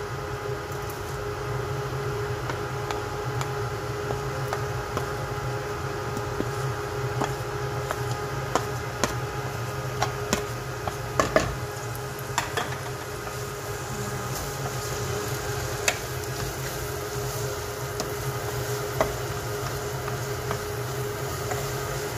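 Diced onion and garlic sizzling in hot oil in a nonstick frying pan, over a steady hum. Scattered sharp clicks, most of them around the middle, come from the pan and the utensils being handled and stirred.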